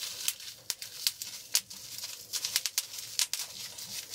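Plastic bubble wrap squeezed and twisted by hand, giving an irregular run of sharp pops and crackles as the bubbles burst.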